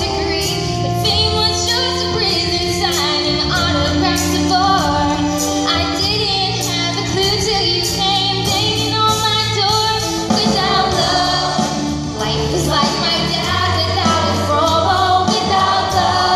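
A choir and solo singers performing a show tune live over an instrumental accompaniment with a steady drum beat and bass.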